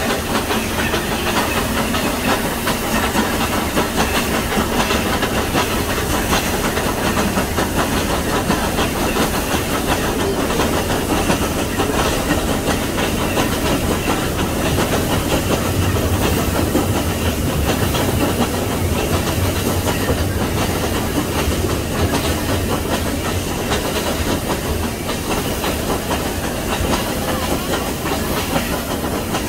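Nilgiri Mountain Railway rack steam locomotive pushing its coaches up a steep grade, with a steady hiss of steam and exhaust over the rolling coaches.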